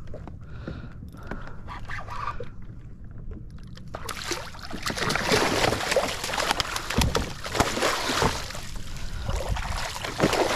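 Water splashing and churning as a hooked cownose ray thrashes at the surface, starting about four seconds in and going on as a loud run of splashes.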